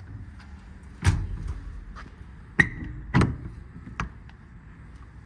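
Compartment doors and latches of an IMT Dominator service body being shut and worked: four metal clunks, the loudest about a second in, one with a short ring after it, and a smaller one near the end.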